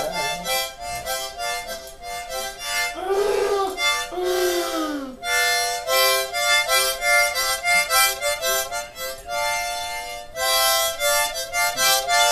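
A harmonica played by a child in short, rhythmic chord bursts. About three seconds in, the playing breaks for two long howls that bend up and then down in pitch, before the harmonica chords start again.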